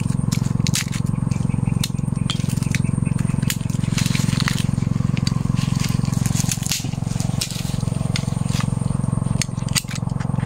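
Irregular crackling and snapping as a dead, dry branch stub and bark are broken away by hand from the base of a jackfruit tree, over a steady low hum.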